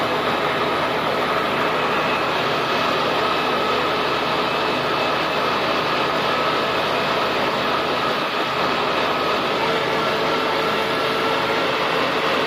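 Tractor engine running steadily while the tractor drives along a road, heard from the driver's seat.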